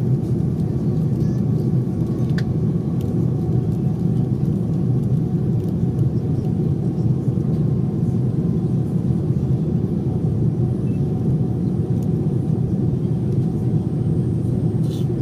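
Steady low roar of an airliner cabin in flight: engine and airflow noise heard from inside the cabin, unchanging throughout.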